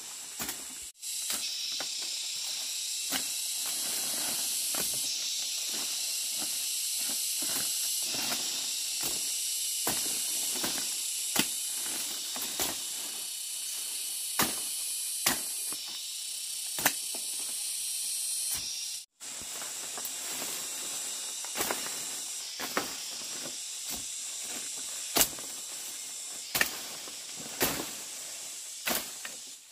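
Dry leaves and twigs crunching and snapping as someone moves through forest undergrowth, in short sharp cracks every second or so, over a steady high-pitched hiss that drops out briefly twice.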